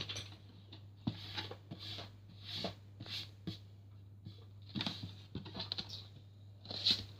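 Faint scattered taps and soft rustles of Play-Doh being handled and rolled out on a desk, over a steady low hum.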